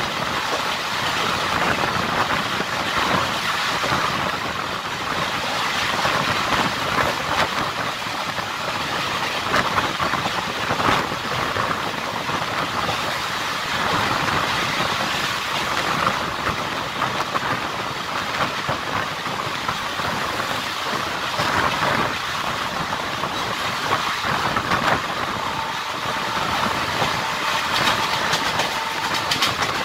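Passenger train coach running at speed, heard from an open window: steady rumble and wind rush with the wheels clattering over the rail joints. A faint steady high tone comes in near the end.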